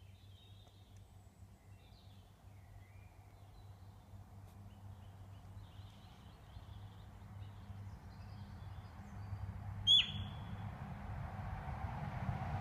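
Sika deer hind giving one short, sharp, high-pitched alarm call about ten seconds in. Faint birdsong runs underneath, and a low rumble builds towards the end.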